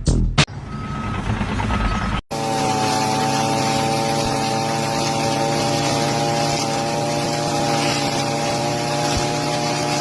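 Heavy construction vehicle: a reversing alarm beeps twice, about a second apart, over a low engine rumble. After a sharp cut, a loud steady machine drone holds one constant pitch.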